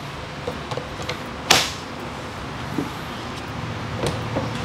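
A few light clicks and one sharp clack about a second and a half in, made as the cordless track saws and their gear are handled, over a steady low hum of the room.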